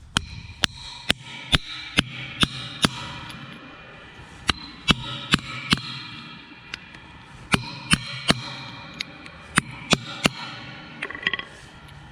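A hammer strikes metal in runs of sharp, ringing blows about two a second, with short pauses between runs.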